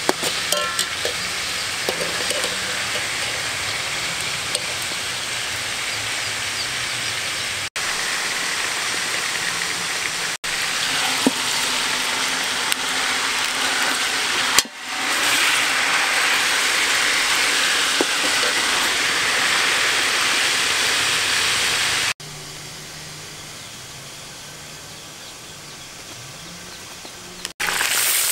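Whole chicken sizzling in a pot of hot juices, a steady frying hiss, with a metal spoon clinking and scraping against the pot in the first second. The sizzle jumps louder about halfway through and drops to a quieter hiss for a few seconds near the end.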